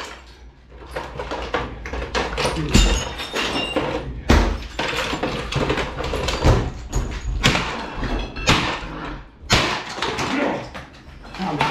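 A metal baseball bat repeatedly smashing a white plastic household appliance: a rapid series of hard blows, one or two a second, with plastic cracking and pieces clattering.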